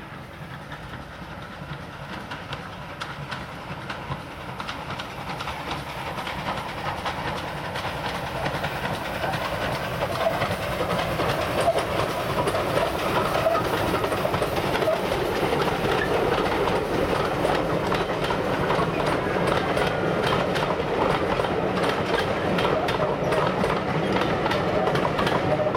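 GWR pannier tank steam locomotive hauling a train of coaches, approaching and passing. It grows steadily louder over the first dozen seconds, then holds as a steady run of wheels clattering over the rails.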